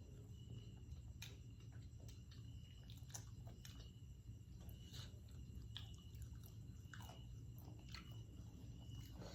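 A person chewing and biting food close to the microphone, with irregular small crunches and mouth clicks.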